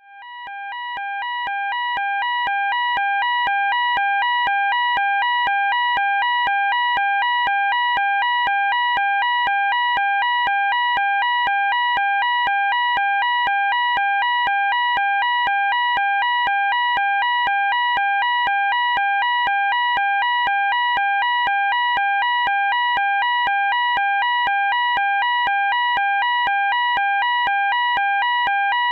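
Fire alarm sounding a two-tone alarm that switches rapidly and evenly back and forth between a lower and a higher tone. It swells in over the first few seconds, then holds steady and loud.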